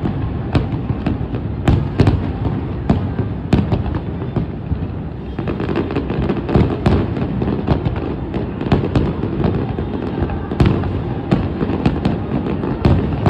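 Fireworks display: a rapid, irregular string of bangs and crackles over a continuous low rumble of bursts and echoes.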